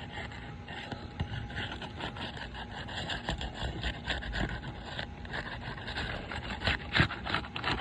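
Asphalt roof shingle tabs being pried up and unsealed with a tool, a run of short scraping and rubbing strokes as the tar seal strip is broken, with a sharper click about seven seconds in.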